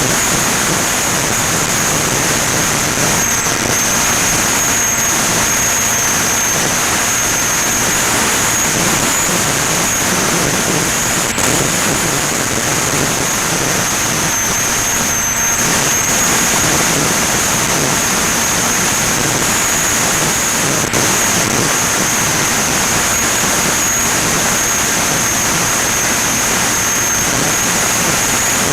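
Electric pusher motor and propeller of a Ranger EX FPV plane running steadily in flight, with airflow rushing over the onboard microphone and a constant high-pitched whine.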